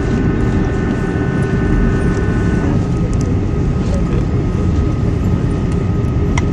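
Airbus A330-200 cabin noise while rolling on the runway after touchdown: a loud, steady low rumble with a steady engine whine, several of whose higher tones drop away about three seconds in, leaving a single tone.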